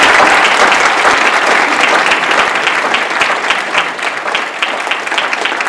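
Theatre audience applauding, loudest at the start and thinning out toward the end so that separate claps can be picked out.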